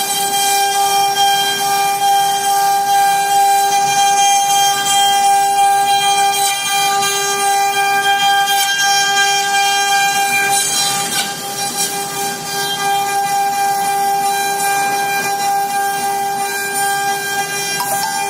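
INM2130 CNC router running, its spindle giving a loud, steady whine.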